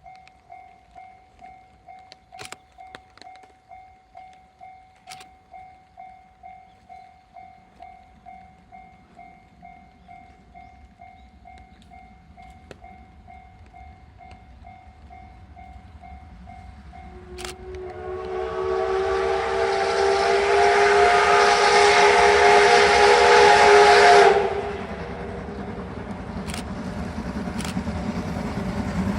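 Japanese level-crossing alarm ringing in a steady pulsed ding, about one and a half strikes a second. A little past halfway, a steam locomotive's whistle sounds one long blast of about seven seconds, a chord of several tones. After it, the rumble of the approaching train grows.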